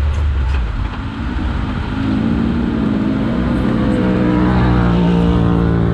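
Can-Am X3 XRC Turbo side-by-side's turbocharged three-cylinder engine running under way on sand; the engine note eases off about a second in, then picks up again, wavering, before holding a steady pitch.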